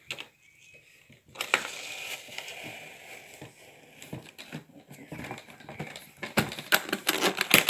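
Hard makeup case being handled and shut: rustling and scraping as the lid comes down, then a quick run of sharp clicks and knocks near the end.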